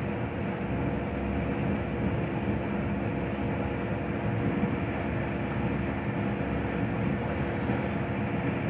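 Steady background hum and rumble, even throughout, with no distinct events.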